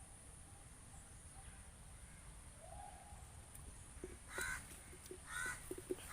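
A crow cawing three times in the second half, short harsh calls about a second apart, over a faint steady background.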